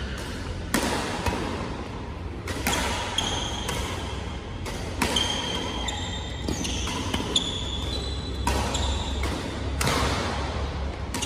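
Badminton rally: sharp racket strikes on a shuttlecock every second or two, with short high squeaks of court shoes on the mat between hits and a steady low hum underneath.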